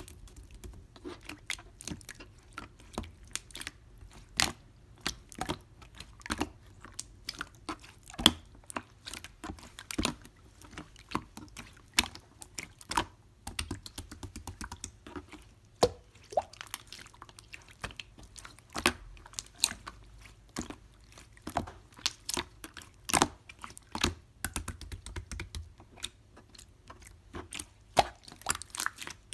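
Clear slime being squeezed and poked by hand, with irregular crisp clicks and pops as air pockets in the slime burst.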